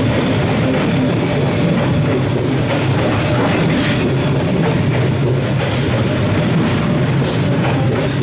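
Passenger train passing at close range: a loud, steady rumble of the engine and wheels on the rails.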